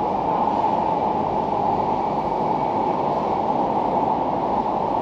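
Steady, even rush of air-conditioning noise, with no tone or break.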